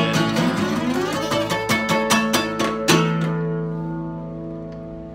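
Acoustic guitar fingerpicked in a quick run of notes, then a closing chord struck about three seconds in and left to ring out and fade away at the end of the tune.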